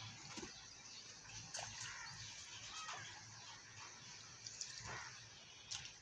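Faint, scattered duck calls over small splashes of a duck dabbling in shallow pond water.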